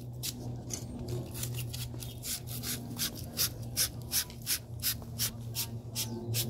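A wire fitting brush scrubbing copper pipe in quick rasping strokes, about three to four a second, cleaning the copper before it is sweated (soldered).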